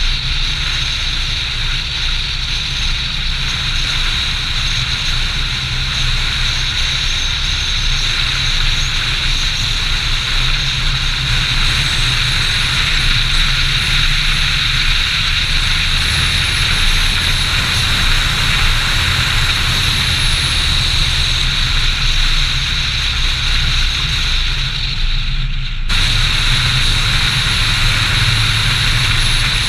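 Steady driving noise of a Volvo 740/940-series sedan on the road: a low engine and tyre rumble under a hiss of wind and road noise. The hiss dips for a moment about 26 seconds in.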